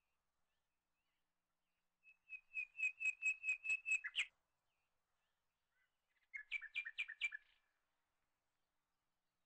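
A bird singing: a fast trill of about ten clear, evenly spaced chirps, then a shorter trill of about seven chirps a couple of seconds later.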